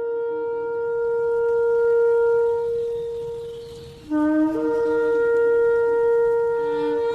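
Shofar blown in two long blasts. The first is one steady held note that swells and fades out about four seconds in; the second opens with a brief lower note, then steps up to the same held note and carries on.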